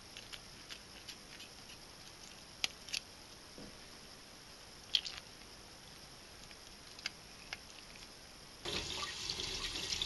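A few faint wet ticks and drips as fingers pull the guts from small dace over a stainless-steel sink; about nine seconds in a kitchen tap is turned on and water runs steadily into the sink over the fish.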